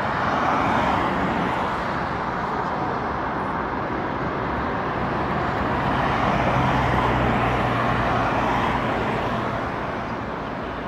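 Steady road traffic noise from cars passing on a busy multi-lane road, swelling as vehicles go by, with a low engine hum from a passing vehicle around the middle.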